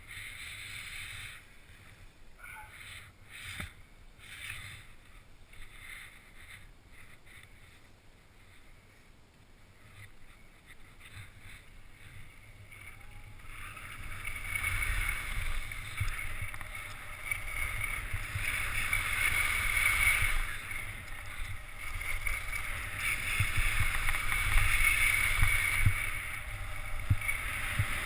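Skis scraping and hissing over groomed snow, with wind rumbling on the action camera's microphone. It is quieter at first and grows louder about halfway through.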